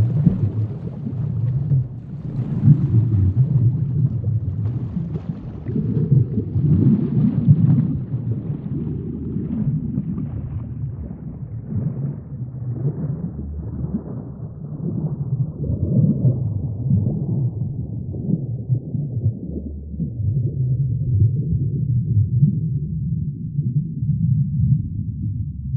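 Saltwater reef aquarium water gurgling and rumbling, low and uneven, with a fainter crackly fizz early on that thins out toward the end.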